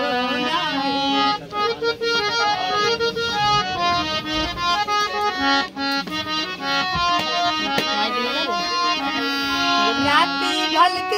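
Harmonium playing a Hindi song's melody on its own between sung lines, with reedy held notes stepping from pitch to pitch.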